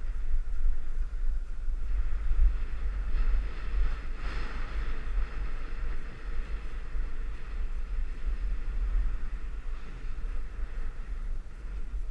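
Wind buffeting the microphone of a camera moving downhill, a heavy low rumble, over a steady hiss of sliding on groomed snow that swells about four seconds in.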